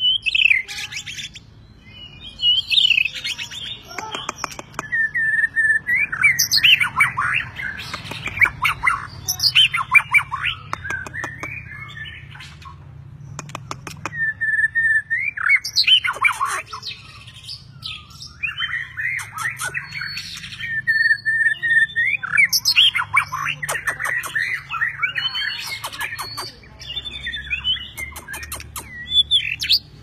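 White-rumped shama (murai batu) singing: varied bursts of clear whistles, some notes held steady, others in quick rattling runs, with short pauses between phrases.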